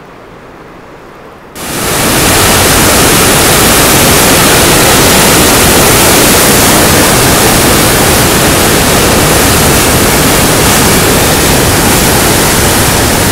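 Glacial meltwater cascade rushing and crashing over boulders at close range, a loud, dense, steady roar of water. It cuts in suddenly about a second and a half in, after a fainter, distant hiss.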